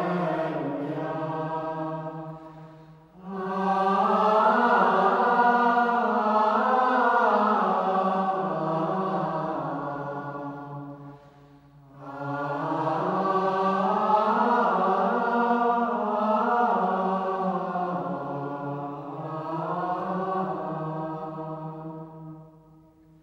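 Unaccompanied chant: a single slow melodic line sung by low voices in long held phrases. It is broken by short pauses about 3 and 12 seconds in, and the last phrase fades away near the end.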